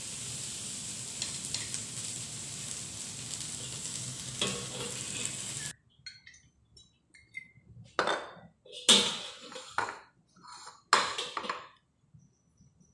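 Chopped green vegetables sizzling in a hot wok while a metal spatula scrapes through them. The sizzling cuts off suddenly about six seconds in. After it come four or five sharp clanks and clinks of metal utensils against the empty wok.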